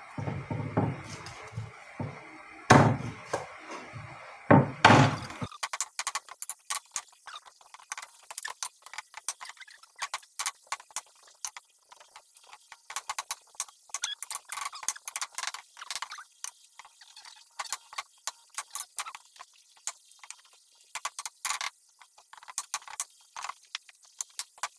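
Kitchen knife cutting raw chicken on a wooden chopping board: a few loud chopping thuds in the first five seconds, then many light, irregular clicks and taps of the blade on the board.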